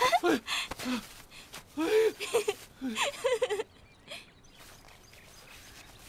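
Short bursts of human voices, laughing and gasping exclamations, in the first three and a half seconds, then it goes quiet.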